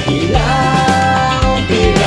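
Pop-rock band music: a man singing a Tagalog lyric over electric guitar, bass guitar and drums.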